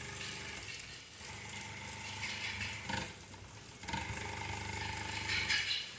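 Jooke CNC template sewing machine running, its needle stitching rapidly and steadily as the template carries the fabric along, with a short lull about three seconds in.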